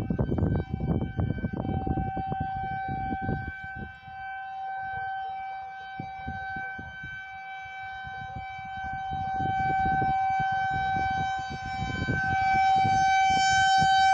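Civil defense tornado warning siren sounding a steady, loud tone, its volume swelling and fading slowly and growing louder near the end. An intermittent low rumble sits underneath.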